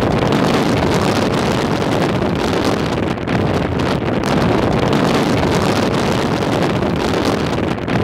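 Blizzard wind blowing hard across the microphone: a loud, steady rush of noise with small surges.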